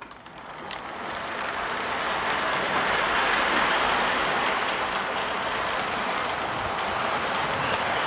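Electric model train running on its metal track, the wheels and motor making a steady rolling rumble that grows louder over the first two seconds as the train comes around toward the microphone, then holds.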